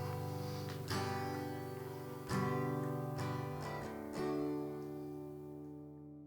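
Acoustic guitar chords struck a handful of times and left to ring, fading away as the closing chords of a worship song.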